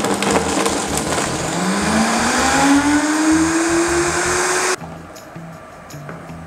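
High-powered countertop blender puréeing soaked apricots with hot water. Its motor pitch rises steadily as it spins up, then cuts off suddenly nearly five seconds in. A few faint knocks follow as the jar is lifted off the base.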